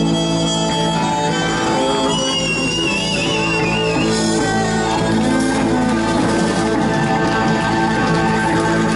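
Live rock band playing: violin, electric guitars and drums together, loud and steady, with a high wavering note standing out over the band about two seconds in.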